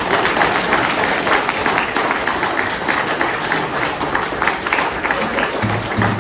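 Applause from a small crowd: many hands clapping steadily and densely.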